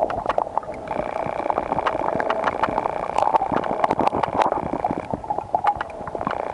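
Underwater lake ambience picked up by a submerged camera: a steady muffled rushing full of small clicks and crackles. A higher steady hum comes and goes over it.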